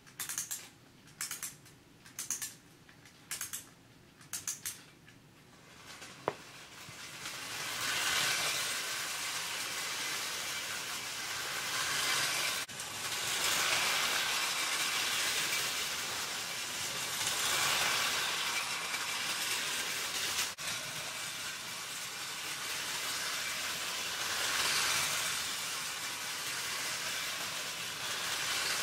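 Tinplate clockwork toy train running on tinplate track: a steady whirring and rattling that swells and fades every few seconds as the train circles nearer and farther. Before it starts, about five short bursts of clicking come roughly once a second.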